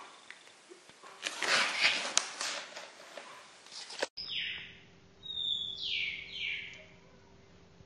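A rush of rustling, scratchy noise with clicks, then three short high-pitched mews falling in pitch from a young kitten.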